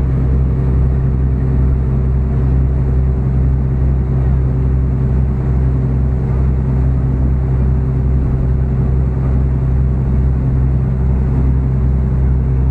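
Tour boat's engine running steadily under way, a constant low drone with water churning in the wake behind the stern.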